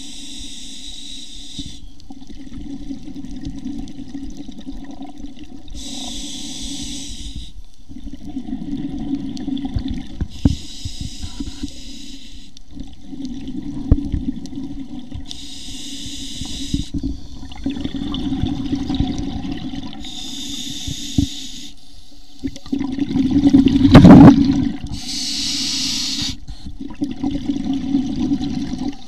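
Scuba regulator breathing heard through an underwater camera housing: a hiss of inhaled air every four to five seconds, each followed by a low rumble of exhaled bubbles. About 24 seconds in, a loud gush of bubbles passes close to the camera.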